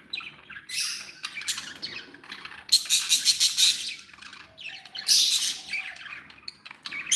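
Budgerigars chattering and squawking in short, rapid bursts, with the loudest runs about three and five seconds in.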